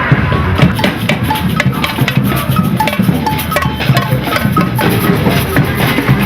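Drums playing a busy, steady rhythm, with short high notes over the beat.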